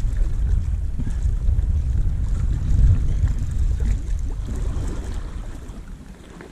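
Wind buffeting the microphone: a heavy low rumble that fades away about five seconds in.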